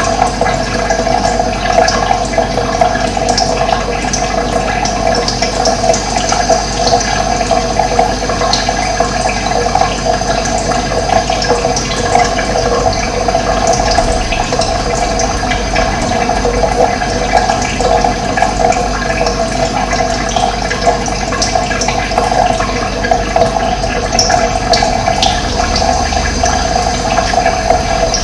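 Running water: a steady, unbroken rushing flow.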